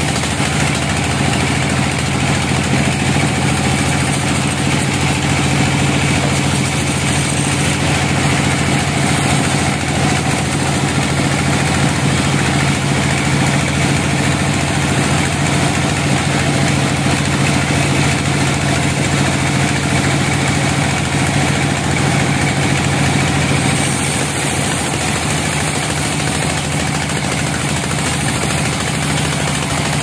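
Vertical band saw mill running steadily with a constant low hum, its blade sawing lengthwise through a log.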